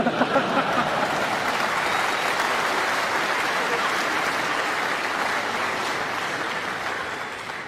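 Arena crowd applauding steadily, the clapping dying away near the end.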